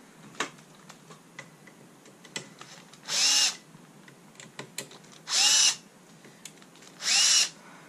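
Bosch cordless drill-driver run in three short bursts, each a quick whir that rises and falls in pitch, loosening the screws of a moving-head light's belt motor mount, with small clicks of handling between bursts.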